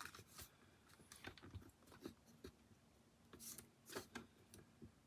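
Near silence with a few faint, scattered taps and rustles of cardstock being handled and lined up for a cut.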